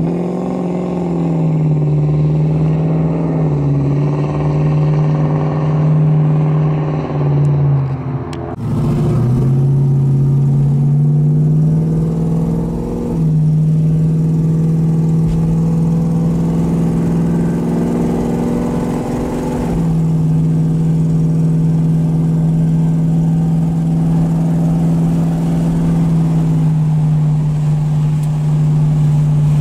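1971 Chevrolet Camaro's engine under way: over the first eight seconds the engine note rises and falls as the car pulls off. After a break it climbs again, then settles into a steady cruising drone heard from inside the cabin.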